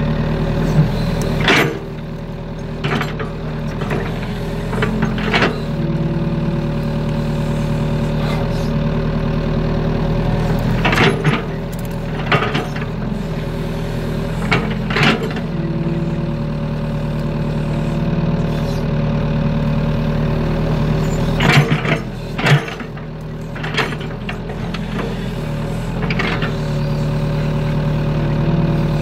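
Excavator's diesel engine running steadily while the arm and bucket dig, its drone shifting slightly with the hydraulic load. A sharp metallic knock comes every few seconds from the bucket and arm.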